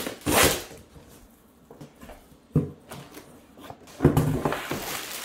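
Packing tape being ripped off a cardboard carton, followed by handling of the cardboard: a sharp knock about two and a half seconds in and scraping and rustling of cardboard boxes near the end.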